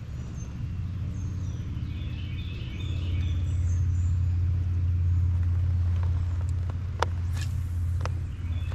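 A low steady rumble, louder from about three seconds in, with faint birds chirping and a few sharp clicks near the end.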